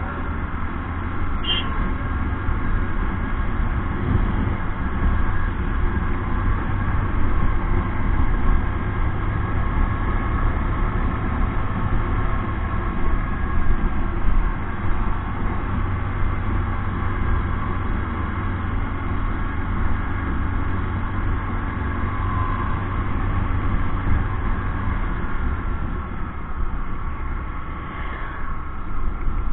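Steady wind rumble on the microphone of a camera riding on a moving Bajaj Discover motorcycle, with the bike's single-cylinder engine running underneath at cruising speed.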